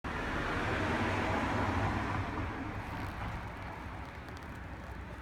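Road noise of a passing vehicle, loudest in the first couple of seconds and then slowly fading.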